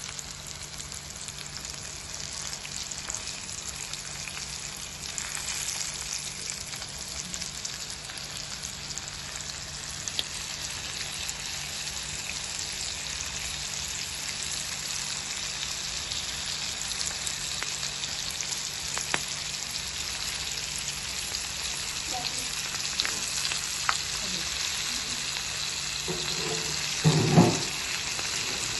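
Flour-battered prawns deep-frying in hot oil in a pan: a steady sizzle with scattered crackles, and a brief louder bump near the end.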